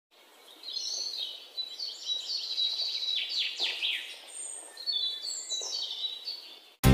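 A songbird singing two phrases of high, varied warbling with quick down-slurred notes, a short pause between them.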